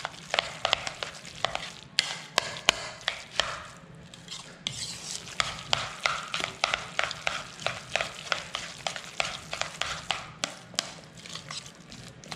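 A fork stirring and mashing a wet mixture of ground chicken, grated zucchini, onion and egg in a bowl. It makes a squelchy hiss with quick, irregular clicks, several a second, where the fork strikes the bowl.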